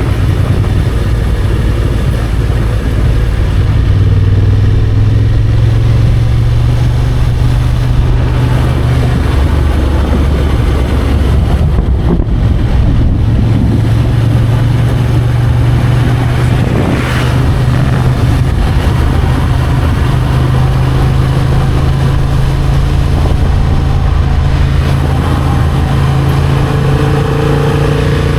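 Motorcycle engine running steadily under way, its pitch shifting a few times as the revs change.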